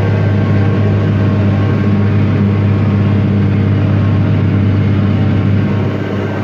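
John Deere 4250 tractor's diesel engine running steadily with the 3970 forage harvester in tow, a loud, even low drone that eases off slightly near the end.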